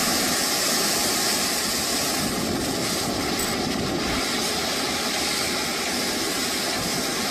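Strong windstorm: a steady roar of gusting wind with no break, from a dust storm thrashing palm trees.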